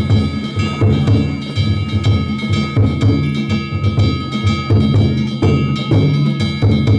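Danjiri festival music: a taiko drum beaten in a quick repeating pattern, with steady metallic ringing over it.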